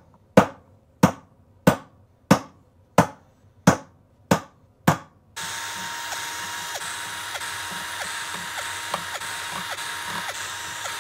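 Hammer tapping a steel center punch into copper sheet, eight sharp ringing strikes at an even pace, each marking a hole. About halfway through a small power drill starts and runs steadily, drilling the punched holes.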